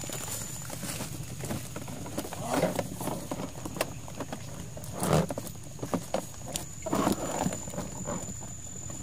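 A handful of irregular rustles and knocks, loudest about five seconds in, over a thin steady high insect trill that drops out within the first second and comes back about halfway through.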